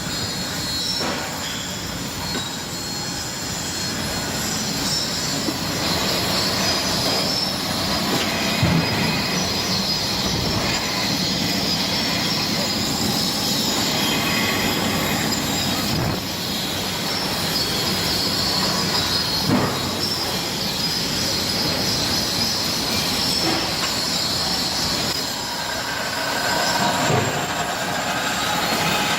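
Heavy-duty foundry wheel grinders grinding metal castings: a steady, loud, high screeching grind, with a few short knocks along the way.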